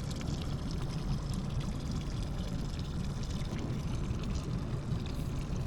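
Water sloshing and lapping against a boat hull, over a steady low rumble.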